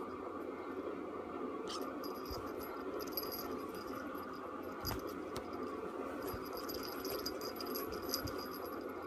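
Light, clicky jingling and rattling of a small object in two spells: around two to three and a half seconds in, and again from about six to eight and a half seconds in. It plays over a steady background hiss, with a soft thump about five seconds in.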